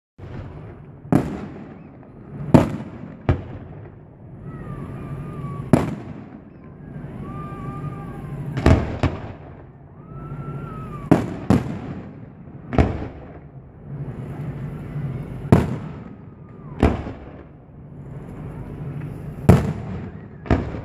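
Aerial fireworks display: about a dozen sharp bangs of bursting shells at irregular intervals, some in quick pairs, over a steady background of noise.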